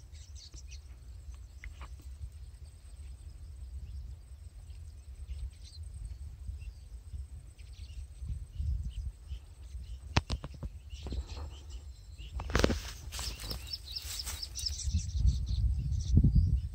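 Birds chirping outdoors over a steady low rumble of wind on the microphone. A few short bursts of noise break in, the loudest lasting about two seconds, two-thirds of the way through.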